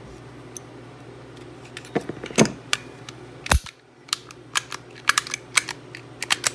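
Metal clicks and clacks of a Kahr pistol being field-stripped by hand. The clicks begin about two seconds in, with one heavier knock around the middle and then a quick run of light clicks.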